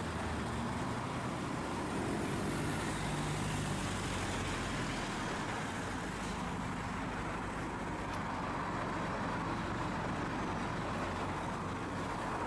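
Diesel engines of articulated lorries running along the road: a curtainsider lorry moving off away and a Scania tractor unit with a flatbed trailer coming closer, over steady road noise.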